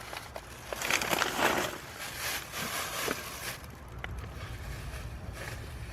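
Groceries being handled and loaded into a car trunk: two spells of rustling, about a second in and again from about two to three and a half seconds in, with a few light knocks, over a low steady rumble.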